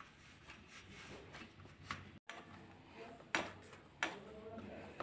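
Khoya and wheat-flour dough being kneaded by hand on a steel plate: faint pressing and rubbing with a few short taps against the metal, the sharpest about three and a half and four seconds in.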